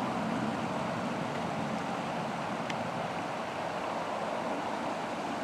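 Steady rushing of a river flowing.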